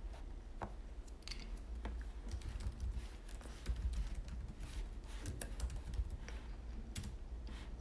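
Typing on a laptop keyboard: a run of quick, irregular key clicks.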